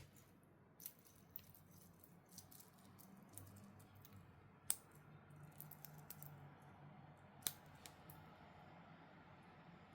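Small clicks and light handling noises of a wristwatch and its packaging being handled, with two sharper clicks, one about halfway through and one near three-quarters of the way.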